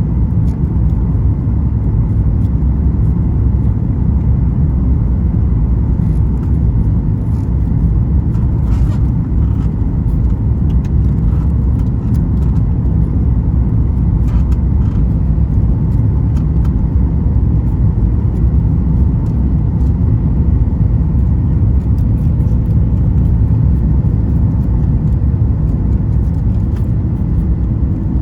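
Steady low rumble of cabin noise inside a Boeing 737 MAX 9 airliner: its CFM LEAP-1B engines and the airflow, with faint steady tones above and a few light ticks.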